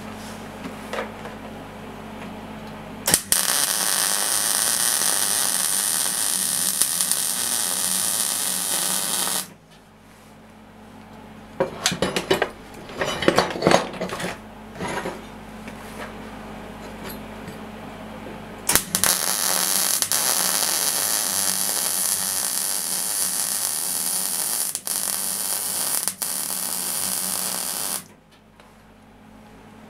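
MIG welder arc welding steel in two runs, each starting and stopping abruptly with a steady hiss: one about three seconds in lasting some six seconds, a longer one from about nineteen seconds lasting around nine. Between the runs, metal parts clink and knock as the pieces are handled and set in the clamp.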